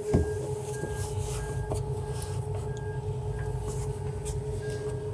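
Torqeedo electric outboard motor running for slow manoeuvring, a steady whine over a low rumble, with a few light clicks.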